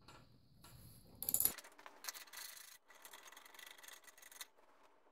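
Lawn mower blade bolt being loosened with a wrench and backed out: a short louder metallic burst about a second in, then faint metal rubbing and scraping.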